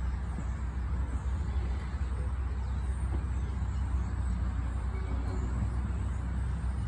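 A 1937 PCC streetcar running away along the track, heard as a steady low rumble.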